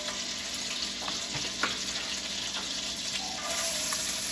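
Butter and olive oil sizzling steadily in a skillet, with a few light clicks. About three and a half seconds in the sizzle grows brighter and louder as chopped shallots are scraped into the hot fat.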